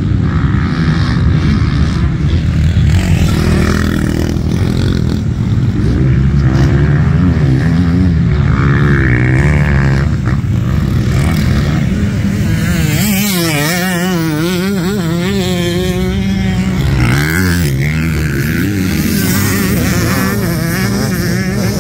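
Motocross dirt bike engines running and revving, the pitch rising and falling quickly several times for a few seconds past the middle.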